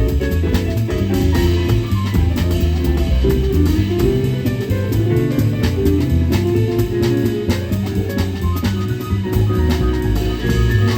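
A jazz quartet playing live, with drum kit and cymbals keeping time under a plucked bass line and busy mid-range notes.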